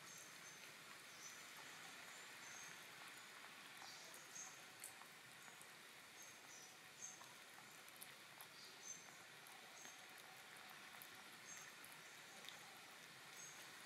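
Near silence: faint outdoor ambience with short high chirps every second or so and a few small soft clicks.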